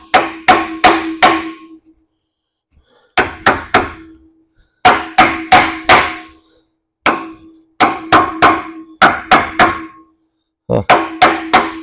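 Hammer blows on a steel drift punch driven through the bolt holes of a truck frame's spring hanger bracket to line them up, the steel ringing after each strike. The blows come in quick bursts of three to five, about seven bursts, with short pauses between.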